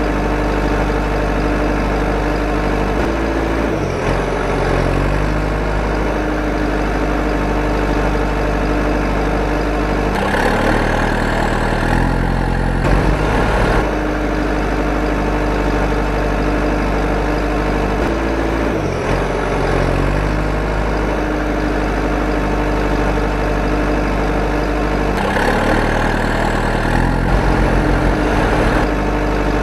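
Truck engine running steadily at idle, its note shifting every several seconds.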